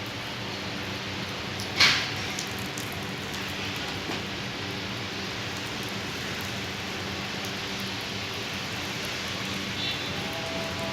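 Rain falling steadily, with one sharp knock about two seconds in.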